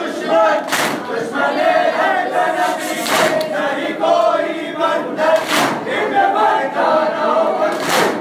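Crowd of mourners chanting a Muharram lament in unison, with a loud, sharp crash about every two and a half seconds, in time with their chest-beating (matam).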